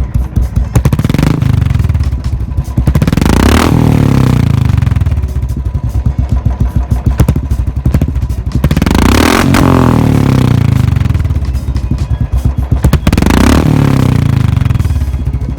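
Royal Enfield single-cylinder motorcycle engine idling with its thump through the exhaust, blipped three times: each rev climbs and drops back to idle, about a second in, around eight seconds and around thirteen seconds.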